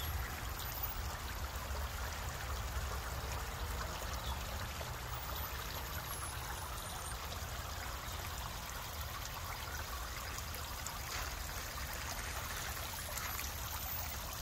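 Steady trickling and splashing of water from a garden fountain driven by a pump, over a low rumble.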